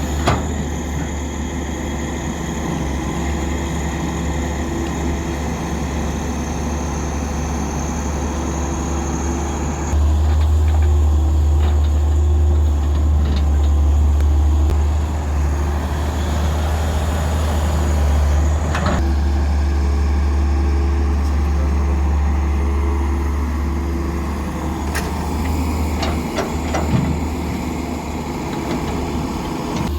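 Heavy diesel construction machinery running steadily at a road works site: a deep engine hum with a pitched drone over it. The sound changes abruptly about ten and nineteen seconds in.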